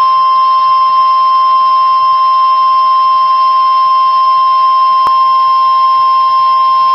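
NOAA Weather Radio warning alarm tone: one steady, loud, unbroken tone, with a brief click about five seconds in. It signals that a warning message, here a flash flood warning, is about to be read.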